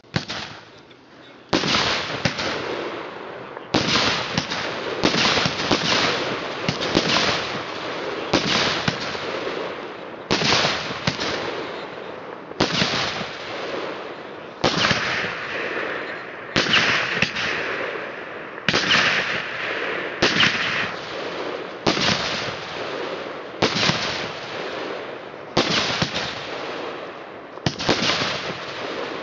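Dense crackling bursts. A fresh burst starts sharply about every two seconds and tails off before the next.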